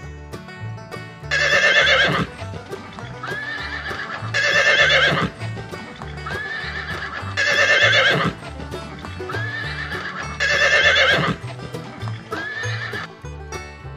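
A horse neighing four times, about every three seconds, each loud neigh followed by a softer, shorter one, over background music with a steady beat.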